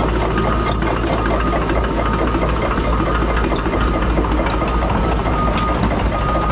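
Heavy diesel engine running steadily, with small ticks and an intermittent faint high tone over it.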